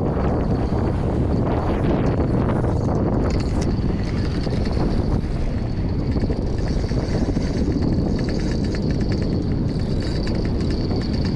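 Strong wind buffeting the microphone. From about three seconds in, a thin high whirr with fast ticking rises above it: a spinning reel being cranked to reel in a hooked fish.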